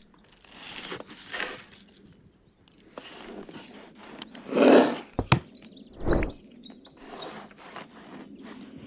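Small birds chirping in quick, hooked calls through the second half, over a few sharp knocks of handling. A louder, dull half-second sound comes about halfway through.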